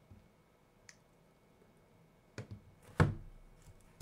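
A few sharp computer-mouse clicks, the loudest about three seconds in.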